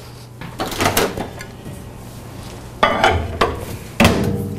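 Microwave oven door being opened and shut as a glass dish of asparagus is put inside, in three separate knocks and clatters, the loudest near the end.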